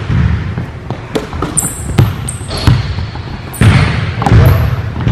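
A basketball bouncing on a hardwood gym floor in a string of sharp knocks, with sneakers squeaking on the court in short high squeals several times.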